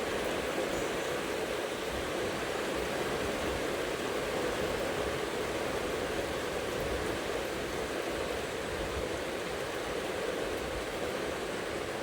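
Steady hiss of rain falling during a thunderstorm, with no thunderclap.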